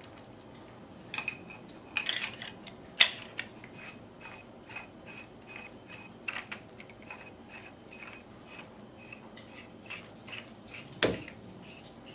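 Clicks and clinks of a Planet Eclipse Etek 3 LT paintball marker being unpacked and handled. There is a sharp clack about three seconds in, another near the end, and a run of quick light ticks through the middle.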